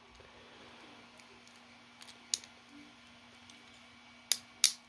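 Small, sharp plastic clicks of a Beyblade Burst top being handled and snapped together: a light click a little over two seconds in, then two sharper clicks about a third of a second apart near the end.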